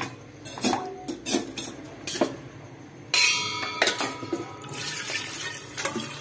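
A few short knocks, then about three seconds in water starts pouring steadily from a steel vessel into an aluminium pressure cooker of meat broth.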